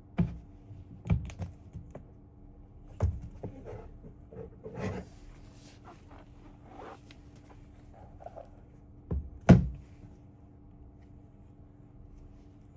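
Scattered thunks and taps from a MacBook Pro and its packaging being handled on a hard surface: about five knocks, the loudest near the end, with some softer rustling between them over a faint steady hum.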